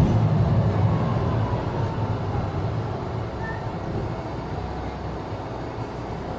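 Mercedes-Benz Citaro C2 G articulated bus heard from inside, its engine and running noise strongest at first, then falling away steadily as the bus slows and pulls up at a stop.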